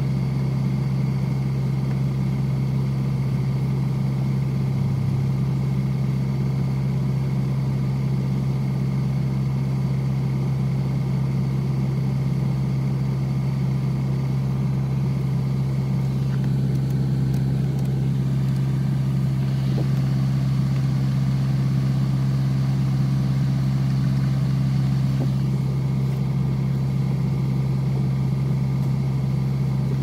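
Car engine idling with a steady, unchanging low drone.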